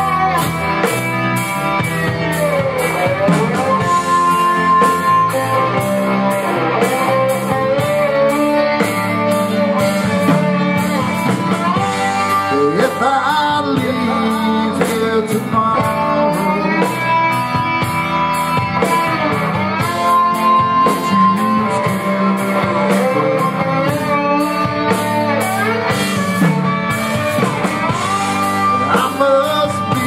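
Live rock band playing: electric guitars and a drum kit, with a man singing lead.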